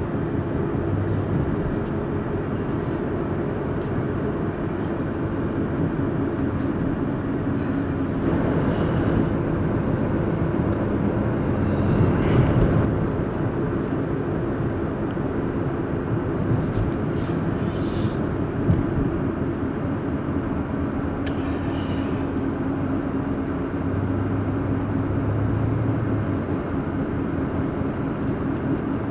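Steady engine and road noise of a moving vehicle, with a slightly louder swell about twelve seconds in.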